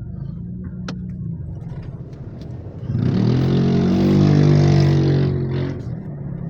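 Vehicle engine running steadily while driving, heard from inside the car's cabin. About three seconds in, a much louder engine sound swells up, rising in pitch, holds for about two and a half seconds, then drops back to the steady hum.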